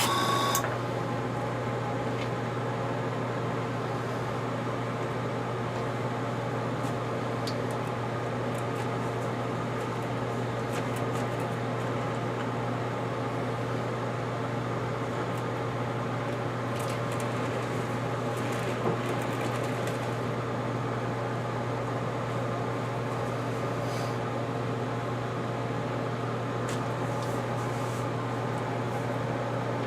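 Steady electric hum of a small motor, such as a spray-booth fan or airbrush compressor, running on its own with a few faint light clicks. A brief paint-spray hiss cuts off just after the start.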